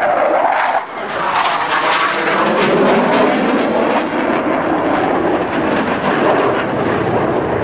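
U.S. Navy Blue Angels F/A-18 Hornet jets roaring past in a low fly-by, the pitch of their jet engines sweeping down and up as they pass.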